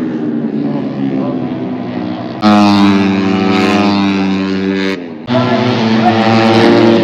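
A vehicle engine running loudly at the race circuit, its note a steady stack of tones. It jumps suddenly louder about two and a half seconds in, sags slightly in pitch, cuts out briefly about five seconds in, then comes back loud.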